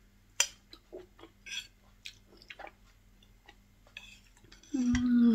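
Eating sounds: a few light clicks of a utensil against a dish and small mouth noises, then a hummed "mmm" near the end, held for about a second and falling in pitch.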